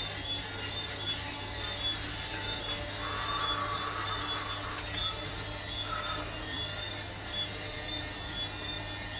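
Small handheld electric fan running with a steady whir of its motor and blades.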